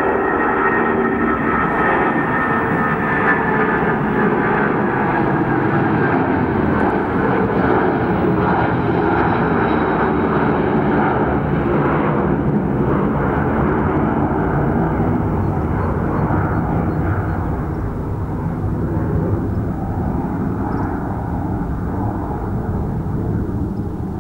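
British Airways Boeing 767 jet engines at takeoff thrust as the airliner climbs out, a loud steady jet noise with a whine that slowly drops in pitch. It eases slightly in the last several seconds as the plane climbs away.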